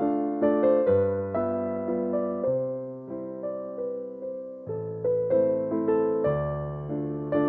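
Background music: an electric piano playing a gentle melody over bass notes.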